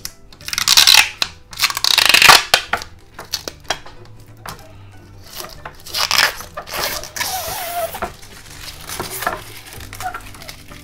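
Protective plastic film being peeled off clear acrylic shelves, a crackling, tearing rasp in several pulls. The loudest pulls come in the first couple of seconds, with more around the middle.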